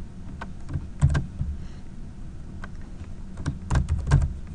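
Keystrokes on a computer keyboard: scattered, irregular key clicks, with a few stronger ones about a second in and again near the end, over a steady low room hum.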